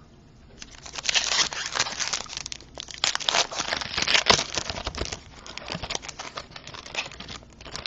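A plastic trading card pack wrapper being torn open and crinkled by hand: a dense run of crackling and rustling that starts about half a second in and tapers off near the end.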